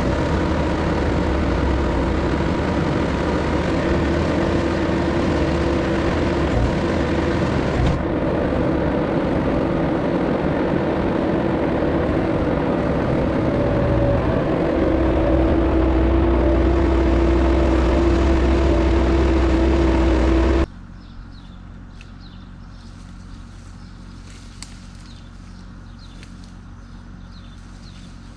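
Bobcat 773 skid-steer loader's diesel engine running hard with a steady whine while working, getting a little louder about halfway through. About two-thirds of the way in it cuts off suddenly, leaving a quiet outdoor background with a few faint ticks.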